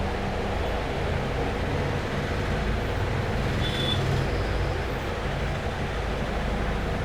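Steady low rumble of road traffic, with a brief high tone about halfway through.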